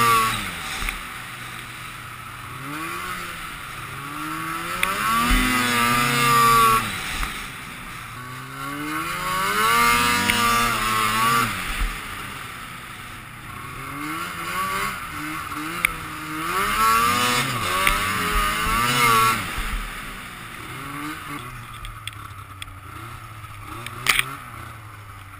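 Two-stroke snowmobile engine revving up and easing off in several surges as the sled accelerates and slows along the trail, with wind rushing past. Near the end it settles to a low idle, and a single sharp knock sounds about a second before the end.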